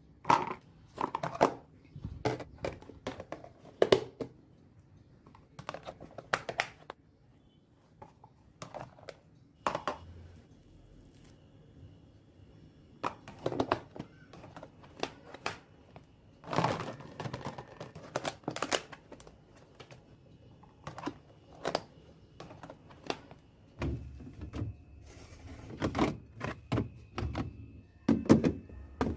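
Containers and packages being handled and set down while restocking a fridge: irregular clicks, knocks and thunks, with some crinkling of packaging.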